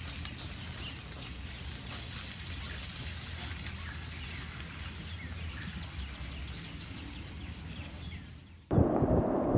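Outdoor woodland ambience: a steady low hiss with faint bird chirps. About 8.7 s in it cuts suddenly to loud wind buffeting on the microphone.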